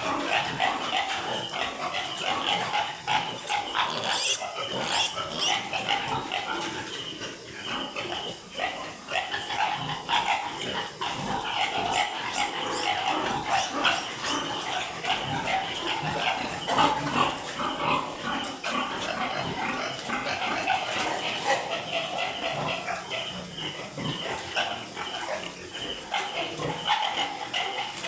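A litter of piglets squealing and grunting together, a continuous busy chatter of many short overlapping calls.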